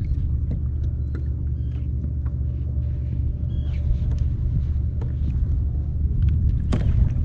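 Steady low rumble of wind buffeting an action camera's microphone out on the water, with a few faint small clicks and taps.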